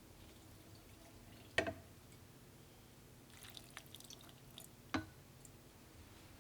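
Water dripping with small knocks and clinks of containers being handled while the water for bean sprouts and green onions is changed: a sharp knock about one and a half seconds in, a patter of light clinks and drips around the middle, and another knock about five seconds in.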